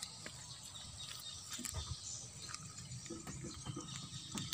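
Faint outdoor background with scattered light clicks and rustles.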